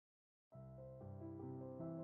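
Silence, then soft, slow background music with sustained notes starting about half a second in.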